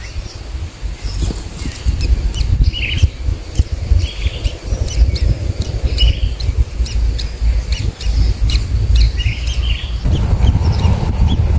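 Many short bird chirps and high ticking calls over a steady low rumble.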